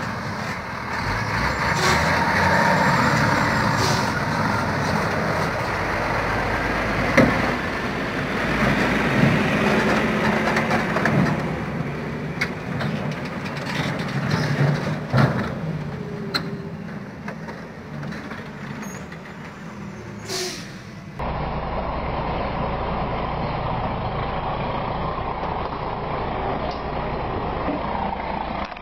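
Scania logging truck with loaded log trailers driving on a dirt road, its diesel engine running steadily, with a few sharp knocks and clatters from the rig. About 21 seconds in this gives way to another truck's engine heard from inside the cab.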